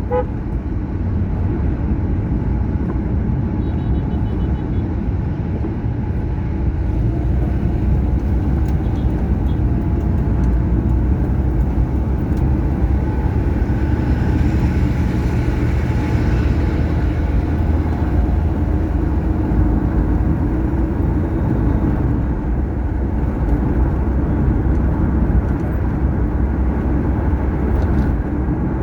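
Steady low rumble of a car driving along a highway, engine and tyre road noise; a hiss swells and fades around the middle.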